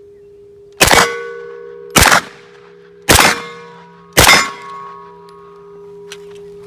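Four 9 mm shots from a POF 5 semi-automatic pistol, fired at about one per second, each cracking sharply and followed by a metallic ringing tail. A steady low hum runs underneath.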